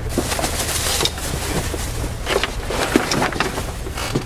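Rustling, shuffling and irregular clattering of boxes and clutter being moved about, over a steady low hum.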